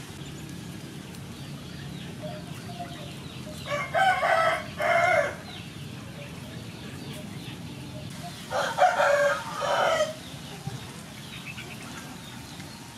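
A rooster crowing twice, about five seconds apart, each crow a drawn-out call in two parts.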